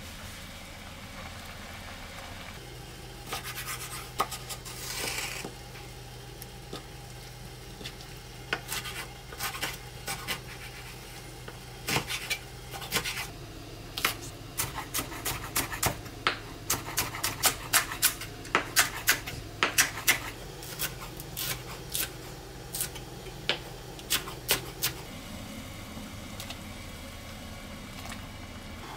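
Kitchen knife cutting a green onion against a wooden cutting board: a run of sharp taps, sparse at first and then quicker and louder through the second half, over a steady low hum.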